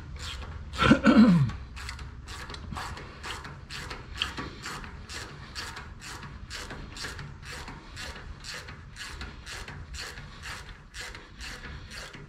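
Hand ratchet wrench clicking in steady, even strokes, about three a second, as a bolt is run in. A brief, louder creak falling in pitch about a second in.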